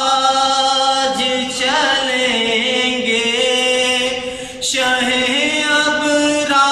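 A naat, an Urdu devotional poem, sung solo and unaccompanied by a young man's voice holding long drawn-out notes, with a brief pause for breath about four and a half seconds in.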